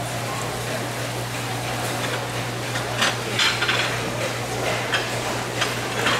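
Tuna slices sizzling in hot oil in a frying pan, with a few short clinks of metal on the pan from about halfway through.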